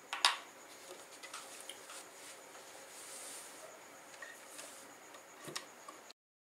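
Cloth being handled and rustled at a sewing machine, with a few sharp clicks, the loudest just after the start and another near the end. The sound cuts off abruptly near the end.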